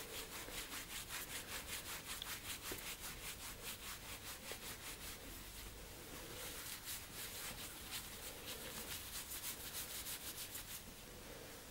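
Microfiber cloth rubbed quickly back and forth over the glass screen of a handheld device, faint even strokes at about four a second, which stop shortly before the end.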